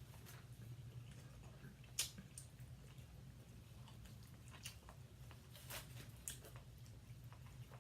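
Quiet eating sounds of people eating barbecue turkey legs: soft chewing and wet smacking with scattered small clicks, one sharper click about two seconds in, over a low steady hum.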